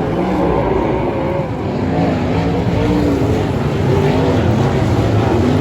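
Several sprint cars racing in a dirt-track heat, their V8 engines rising and falling in pitch as they lap the track.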